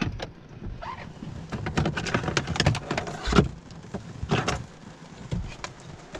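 Rustling, clicks and knocks of objects being handled under a car's dashboard as a cable is pulled out, irregular throughout, with the loudest knocks near the middle and about four and a half seconds in.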